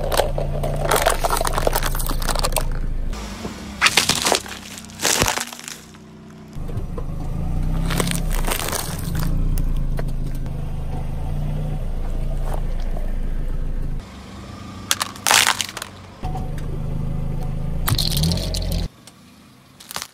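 Background music with a steady bass, broken about six times by loud cracks and crunches as a car tyre rolls over and crushes objects such as plastic cups and sweet packets.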